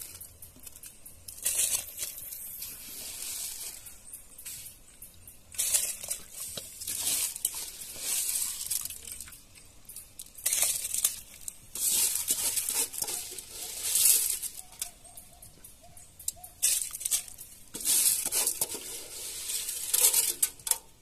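Washed rice and water being poured into a pot of simmering coconut-milk liquid, heard as a series of short hissing, splashing pours.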